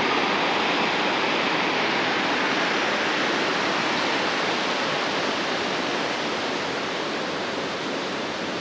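Water released from a dam boiling up out of its outlet into a concrete channel: a steady rush of churning water that eases slightly toward the end.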